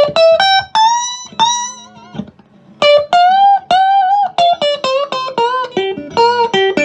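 Electric guitar, a two-humbucker Fender Big Apple Stratocaster on its fourth pickup position (a coil combination), played through a home-built tweed Fender Pro Junior-style amp with four 8-inch speakers. It plays a single-note lead line with string bends and vibrato, pauses about two seconds in, then plays a quicker run of notes.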